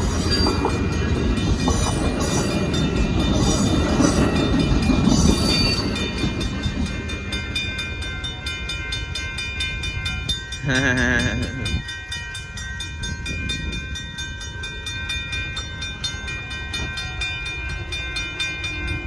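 Amtrak Texas Eagle passenger cars rolling past, wheels clattering over the rails, loud for about six seconds and then fading as the train moves away. After that a fast, even ringing carries on, typical of a grade-crossing bell. A brief wavering tone sounds about eleven seconds in.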